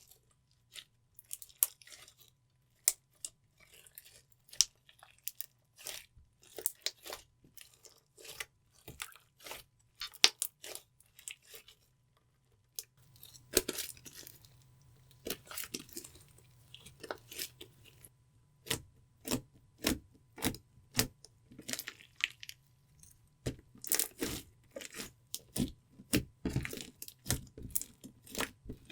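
Clear slime being kneaded and stretched by hand, giving off irregular sticky clicks, pops and crackles that come in denser clusters about halfway through and again near the end.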